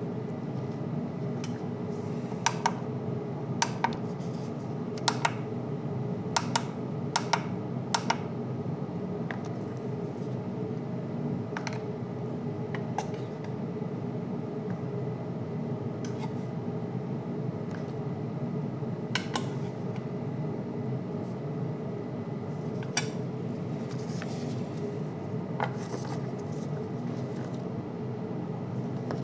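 Clear plastic food containers being handled on a kitchen counter and digital scale, knocking and clicking in a quick run of sharp clicks during the first eight seconds and a few more later. A steady low hum runs underneath.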